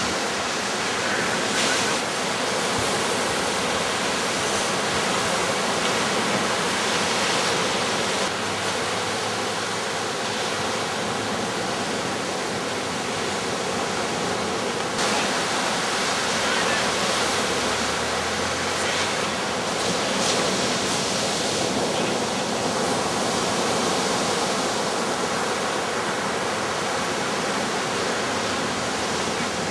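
Ocean surf breaking on a beach: a steady rushing wash of waves that swells and eases a little every few seconds.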